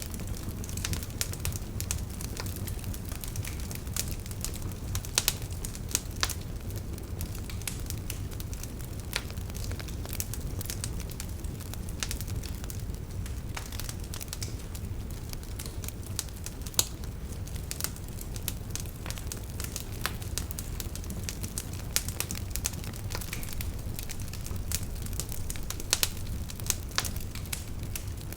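Fire burning in a fireplace: a steady low rumble with irregular sharp crackles, and now and then a louder pop.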